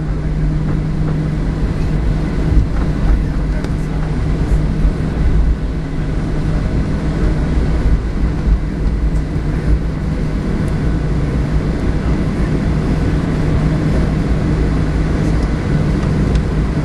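Cabin noise of a Boeing 737-700 taxiing, heard from a window seat over the wing: the CFM56-7B engines running at low taxi power as a steady hum over a low rumble.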